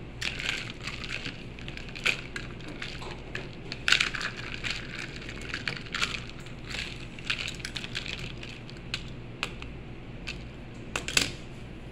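A die-cast Cruz Ramirez Color Changers toy car being dunked and moved about in a small plastic tub of cold water: a string of irregular small clicks and knocks, the loudest about four seconds in and again near the end.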